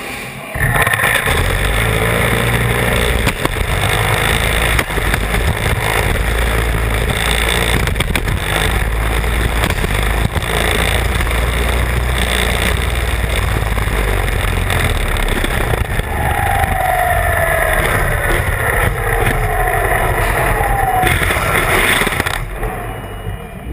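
Combat robot running in a match, its electric drive motors giving a loud, steady rumbling noise that starts suddenly and dies away near the end. There are a couple of falling whines in the second half.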